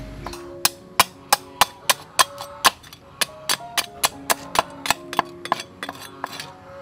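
Cleaver chopping into snail shells on a wooden chopping board: a quick run of sharp knocks, about three or four a second, with a short break a little under halfway through.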